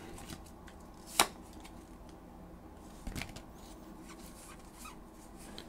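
Pokémon trading cards being handled in the hands: a few light card clicks and slides, the sharpest about a second in and another about three seconds in.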